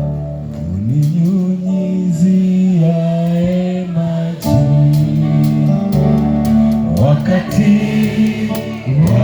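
Gospel music with keyboard and sung voices, a slow gliding melody over held chords.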